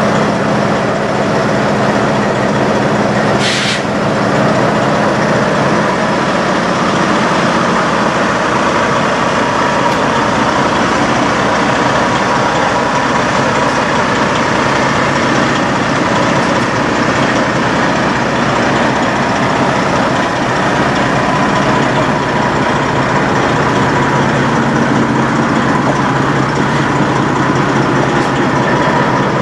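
Diesel semi-truck engine idling steadily, with a short hiss of air about three and a half seconds in.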